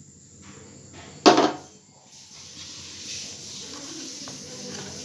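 A metal ladle knocks once against an aluminium cooking pot about a second in. Quieter stirring through thick urad dal porridge follows.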